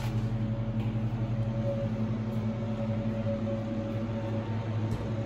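Steady electric hum of a wall-mounted fan-forced unit heater running, with a constant low drone and a fainter higher tone.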